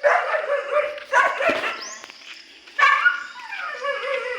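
A dog barking and yipping in three short bursts, with high, wavering whines between them.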